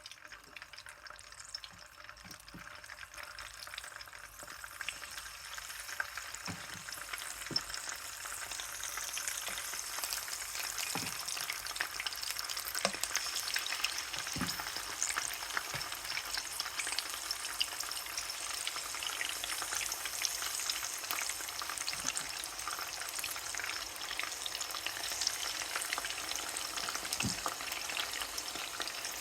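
Chicken frying in hot oil in a pan, with a steady sizzle that grows louder over the first several seconds and then holds. Scattered taps and scrapes come from a spatula stirring.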